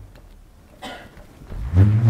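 Didgeridoo played live: the low drone drops away and a short breathy rasp comes about a second in, then the drone comes back in loudly near the end with a brief upward swoop.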